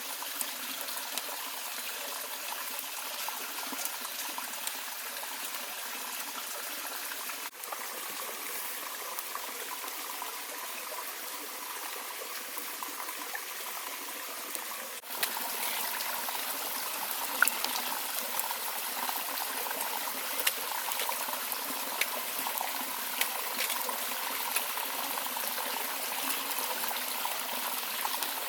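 Running water of a shallow stream trickling steadily, with small splashes. The sound breaks off abruptly twice, at about 7 and 15 seconds in, and is a little louder after the second break.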